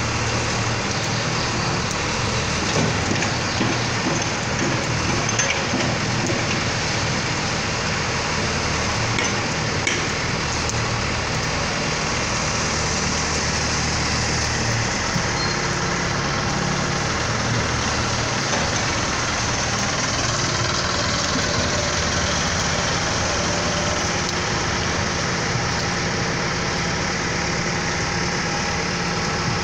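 Diesel engine of a Case backhoe loader running steadily at work, over a steady hiss of rain.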